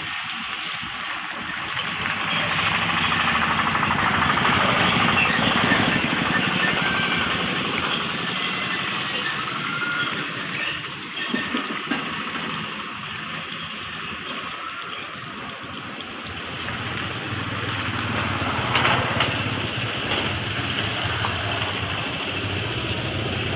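Chilli fritters in batter sizzling in hot oil in an iron kadai, with a steady low rumble underneath. A few sharp clinks come about three-quarters of the way through, as the wire skimmer is knocked against the pan.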